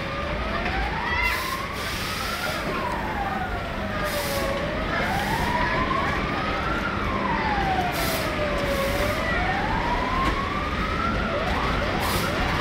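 Electronic wailing siren, rising and falling slowly about every four seconds over a steady background din. Near the end it switches to quick, short rising yelps.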